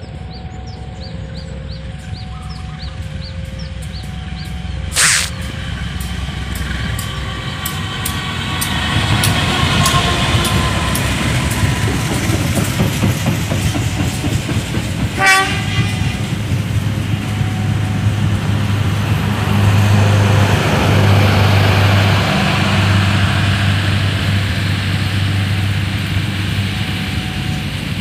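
Indonesian diesel-electric passenger train approaching and passing close by: a low engine drone grows loud in the second half, with wheels clattering over rail joints, and a brief horn blast about halfway through.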